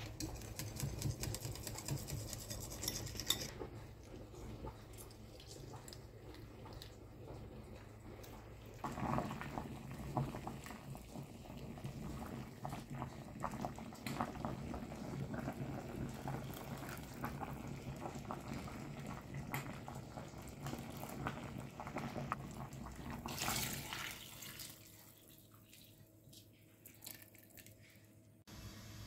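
A metal whisk clinks rapidly against a bowl while it beats a flour mixture. Then a metal ladle scoops hot broth from the pot and pours it into the bowl, with liquid splashing and pouring and utensils clinking. It goes quieter near the end.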